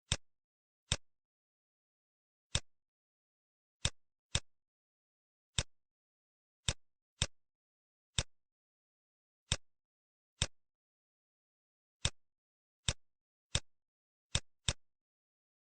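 Computer mouse clicking, single sharp clicks at irregular intervals of about half a second to a second and a half, sometimes two in quick succession, with dead silence between them.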